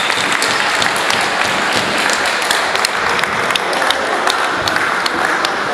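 Crowd applauding: dense, steady clapping with a few sharper individual claps standing out.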